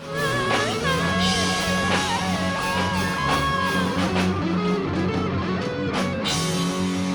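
Rock music: an electric guitar plays a lead line with bent notes over a steady bass and drums, starting suddenly after a moment of silence.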